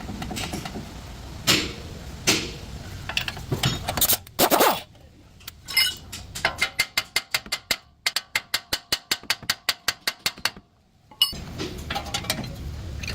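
Ratchet wrench clicking in a quick even run, about six clicks a second, as a fastener on the tie rod is worked, with a few sharp metal knocks before it and a low engine rumble at the start and near the end.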